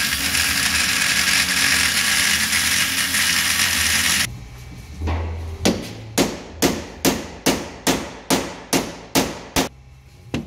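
Angle grinder cutting into the bearing on a steel differential carrier, stopping suddenly about four seconds in. Then about ten sharp metal hammer strikes, roughly two a second.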